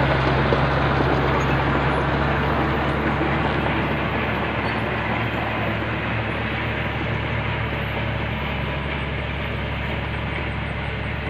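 Bulldozer's diesel engine running steadily, with a low even hum under a dense clattering noise, slowly fading.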